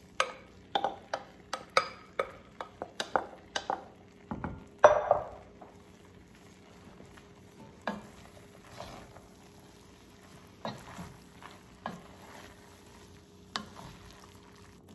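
A spoon scraping shredded chicken out of a glass bowl and stirring it into cooked rice in an enamelled Dutch oven. There is a quick run of taps and knocks against bowl and pot over the first few seconds, the loudest about five seconds in, then slower stirring with occasional scrapes and knocks.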